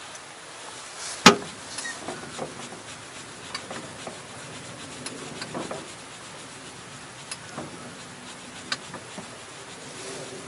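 Handling noise from a spinning rod and reel being worked: one sharp click about a second in, then scattered light ticks and rubbing.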